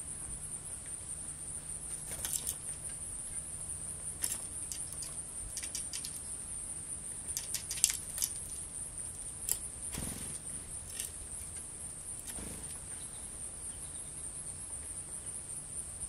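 Steady high-pitched trilling of insects in the background, with scattered light clicks and taps. A quick cluster of sharp clicks and wing flutter about eight seconds in, as a small bird flies in to the seed feeder.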